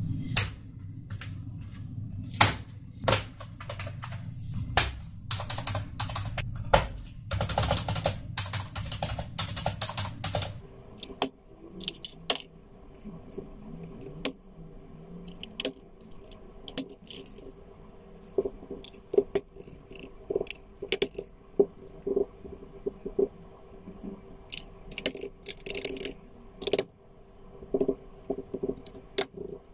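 Plastic keys and keycaps of a Razer Cyclosa membrane keyboard clicking and clattering under the hands as they are pressed and fitted back onto the board, an irregular run of sharp clicks. About ten seconds in, the low rumble beneath the clicks gives way to a steady low hum.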